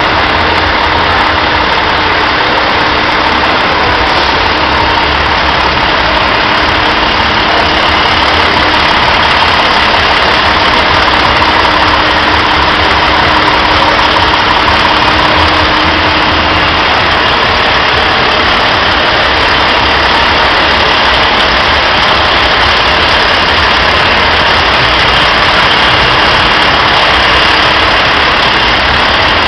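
A large diesel truck engine idling steadily, a low rumble under an even wash of noise that does not change.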